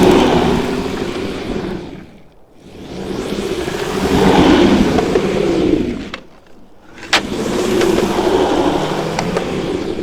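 Skateboard wheels rolling, in three passes that each swell and fade, with a single sharp click at about seven seconds.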